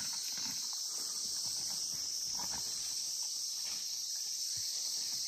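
Steady high-pitched drone of forest insects, with faint footsteps on dry leaf litter.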